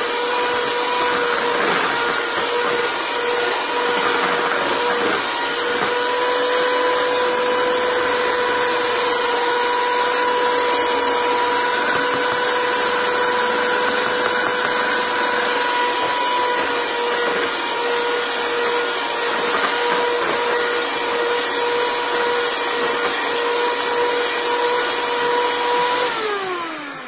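Electric hand mixer running steadily with a constant motor whine as its beaters work through thick cake batter. About a second before the end it is switched off and the whine drops quickly in pitch as the motor spins down.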